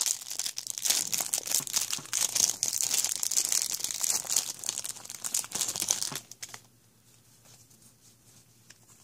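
A 2013 Topps Magic football card pack wrapper crinkling and tearing as it is ripped open and the cards are pulled out. The crinkling stops about six seconds in.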